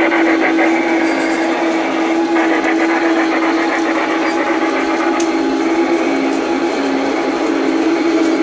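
LGB garden-scale model of a Rhaetian Railway 2-6-0 steam locomotive running along the track with its coaches: a steady, even whine from its electric motor and gearing over the clatter of wheels on rails.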